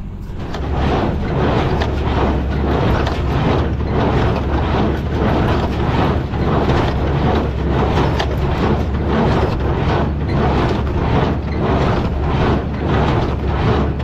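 Tractor engine running under load while pulling a small square hay baler, with the baler working hay in a steady, even rhythm over the engine drone.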